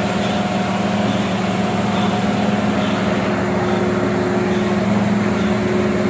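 Komatsu PC1250-8R excavator's diesel engine running at a steady speed, a constant hum with steady tones in it; a second, higher tone comes in about three seconds in.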